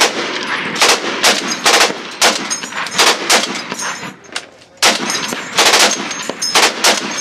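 Browning M2 heavy machine gun firing a string of heavy, echoing shots, irregularly spaced, with a short pause about four and a half seconds in before the firing resumes.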